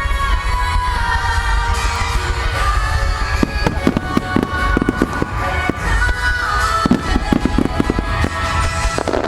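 Fireworks display music playing, with firework shells bursting and crackling over it. A dense run of sharp cracks comes from about three and a half seconds in.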